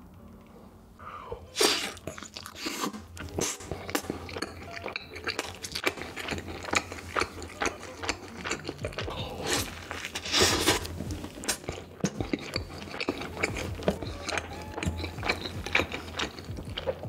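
Close-miked mukbang eating sounds: a cheeseburger dipped in cheese sauce being bitten and chewed, a dense run of wet, crunchy mouth clicks, with louder moments about one and a half and ten and a half seconds in.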